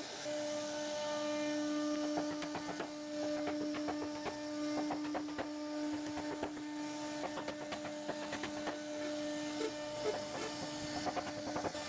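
CNC router spindle cutting a groove in a wooden panel: a steady high whine with many quick, irregular clicks from the bit chipping the wood.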